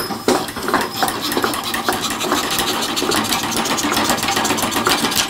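Antique Empire foot-powered (treadle) scroll saw running: the blade strokes rapidly up and down through wood with a steady mechanical clatter. The saw is freshly restored and working.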